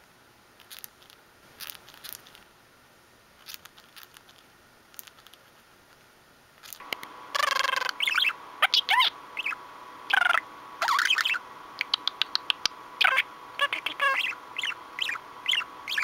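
Budgerigar grinding its beak: soft, scattered scraping clicks in short runs, the sound of a relaxed, contented budgie. About seven seconds in, the budgie chatters loudly in quick chirps and warbles over a steady hum.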